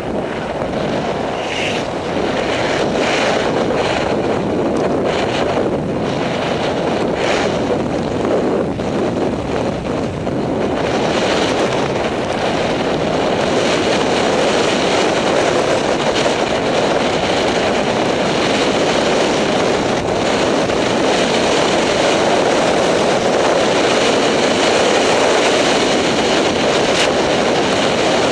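Wind rushing over the camera microphone while sliding fast down a groomed snow slope, mixed with the hiss of snow underfoot. It surges unevenly for the first ten seconds or so, then settles into a steadier, hissier rush.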